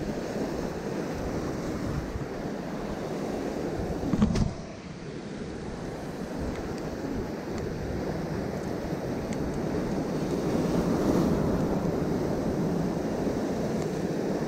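Surf breaking and washing over shoreline rocks, with wind buffeting the microphone. A brief louder burst comes about four seconds in, and the surf swells again later on.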